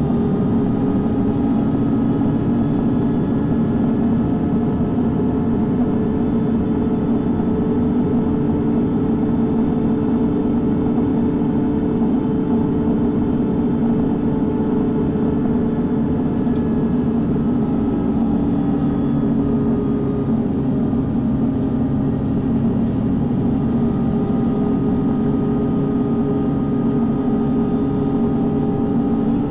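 MAN NG 323 (Lion's City G) articulated diesel city bus heard from inside the passenger cabin: engine and drivetrain running steadily, a low hum with a faint higher whine that shifts slightly in pitch now and then.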